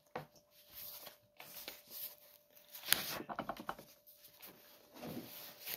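Pages of a book being leafed through: faint paper rustling and soft handling, with one sharp tap about three seconds in.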